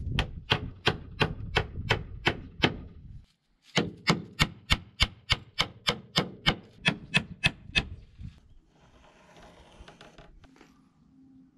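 Claw hammer driving nails through old wooden floorboards into a wooden frame: quick, steady blows about three a second, with a short break about three seconds in. The hammering stops about eight seconds in.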